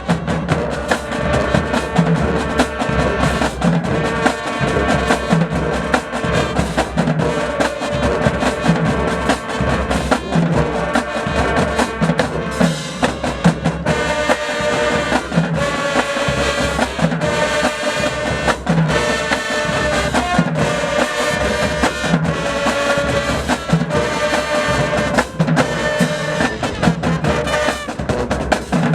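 High school marching band playing: brass section sustaining chords over a steady drumline beat.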